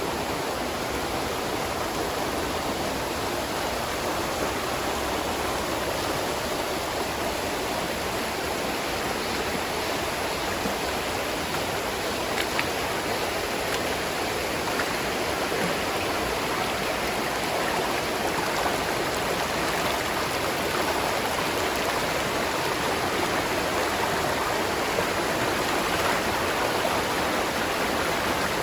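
Spring water running steadily over rocks, a continuous rushing and babbling with no pauses.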